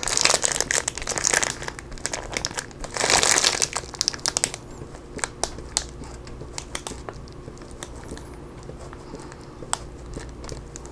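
Block of extra sharp cheddar rubbed across the medium holes of a cheese grater: scraping rasps in strokes, loudest in the first second and again around three seconds in, then lighter scrapes and small clicks.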